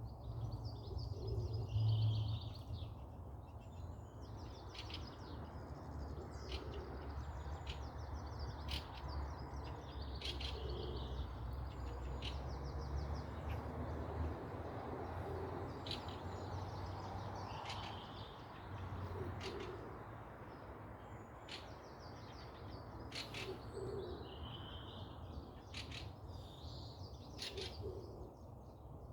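Forest birds chirping and singing in short repeated phrases, with a low hooting or cooing call about every four seconds and scattered sharp clicks. A low rumble runs underneath and fades about halfway through.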